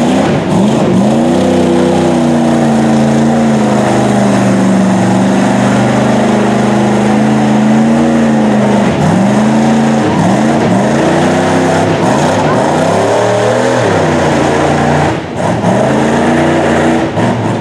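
Lifted Chevrolet Silverado mud truck on giant tractor-style tires revving hard as it churns through water and mud, with water splashing from the tires. The engine drops and climbs at the start, holds high revs for several seconds, then rises and falls several times in quick succession before easing off near the end.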